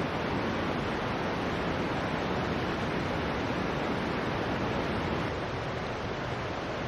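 Steady rushing of a mountain valley stream, an even wash of water noise that eases slightly about five seconds in.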